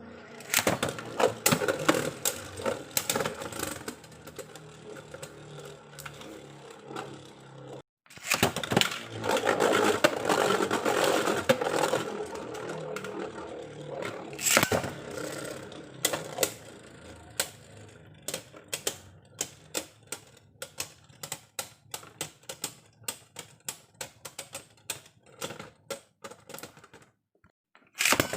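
Beyblade battle tops spinning and clashing in a stadium, with rapid clicking collisions. After a short break near 8 seconds a second stretch of clashing follows. From about halfway through it thins to separate, scattered clicks.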